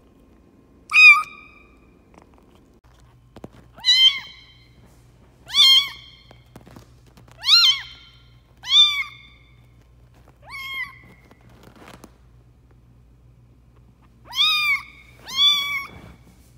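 A very young tabby-and-white kitten meowing: eight short, high-pitched cries, each rising then dropping in pitch, spaced one to a few seconds apart, the last two coming close together near the end.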